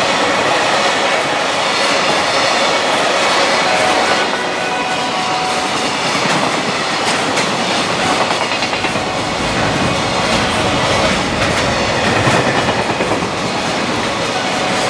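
Container wagons of a long freight train passing close at speed: a steady, loud rush of steel wheels on rail, with clickety-clack as the wheels run over rail joints.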